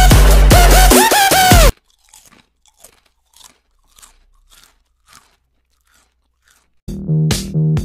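Electronic dance music with gliding synth tones cuts off suddenly under two seconds in. A stretch of faint, irregular crunching snaps follows. An electronic drum-machine beat starts near the end.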